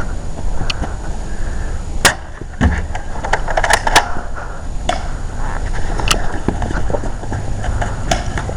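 Airsoft guns firing single shots during a game: several sharp cracks at irregular intervals, with a cluster of them around the middle.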